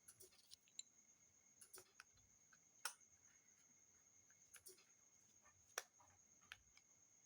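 Faint, scattered clicks and ticks of a small screwdriver and tiny screws being worked out of a smartphone's inner frame, about six sharp clicks spread irregularly over the stretch, against a faint steady high whine.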